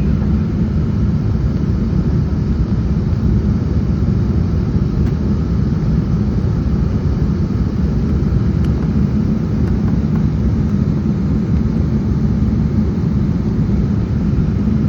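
Steady cabin roar inside an Embraer 195-E2 airliner in flight: the Pratt & Whitney PW1900G geared turbofans and airflow making a constant low rumble.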